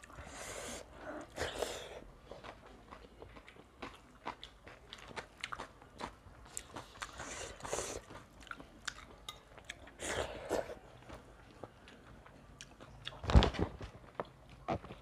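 Close-up eating sounds of two people eating rice and curries by hand: wet chewing and mouth smacks, with fingers squelching through rice on steel plates. A sharper knock near the end is the loudest sound.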